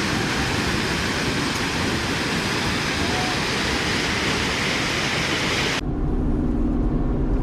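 Floodwater from overflowing rivers rushing, a loud, steady wash of noise. About six seconds in it cuts off abruptly to a lower rumble with a faint steady hum.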